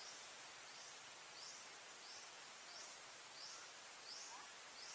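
Faint outdoor nature ambience: a steady hiss with a short, high chirp repeating evenly, a little more often than once a second.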